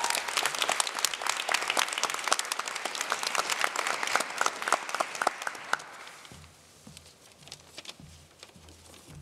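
Audience applauding, a dense patter of hand claps that thins out and dies away about six seconds in, leaving only a few scattered sounds.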